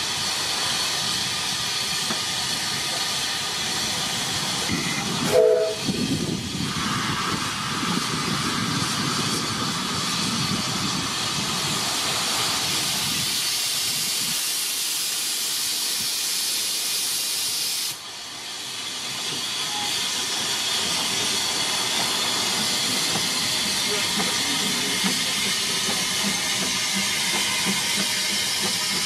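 Steam hissing steadily from the narrow-gauge George England 0-4-0 saddle-tank locomotive PRINCE, with one short whistle toot about five seconds in.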